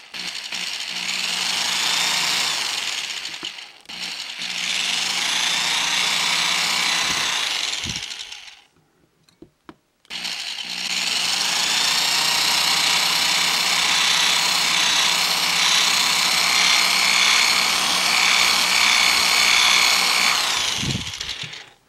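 Electric drill running as its bit drills out a plastic rivet in a small plastic battery box: a steady whine in three runs, with a brief dip about four seconds in and a pause of about two seconds before the longest run.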